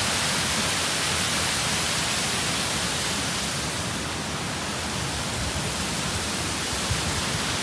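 Small waterfall pouring over a ledge into a stream: a steady rushing of falling water.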